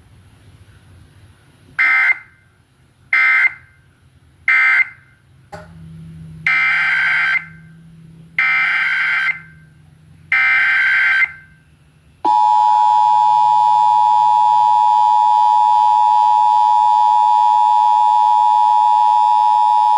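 Emergency Alert System data tones from a broadcast Required Monthly Test. Three short data bursts mark the end of the voice message, then three longer SAME header bursts follow. About twelve seconds in, the loud, steady two-tone EAS attention signal begins.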